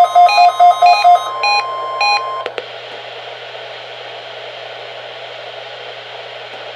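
NOAA Weather Radio warning alarm tone, a steady tone of about 1 kHz, with rapid beeping about five times a second that thins out, sent as the weekly test. The tone cuts off about two and a half seconds in, leaving steady radio static hiss.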